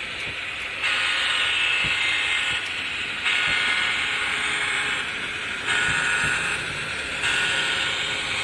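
A model passenger train running past along the track. It makes a steady hissing rolling noise that jumps louder in sudden steps, four times, a second or two apart.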